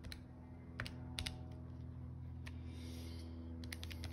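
Button presses on a Casio fx-115ES PLUS scientific calculator: short, soft clicks at uneven intervals, with several in quick succession near the end, over a low steady hum.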